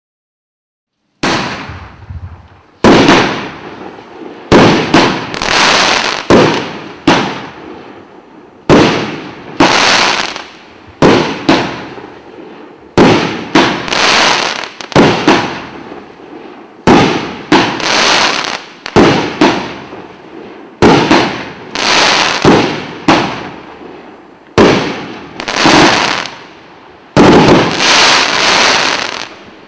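Megabanger 'Just Bad' 500g, 16-shot firework cake firing: a rapid run of bangs every second or two, starting about a second in, each one dying away in crackle before the next.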